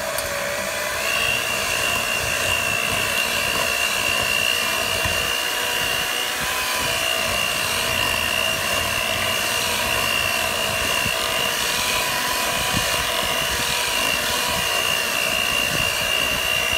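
Electric stand mixer running steadily, its beaters turning through donut batter in a bowl: a constant motor whine, with a higher steady tone joining about a second in.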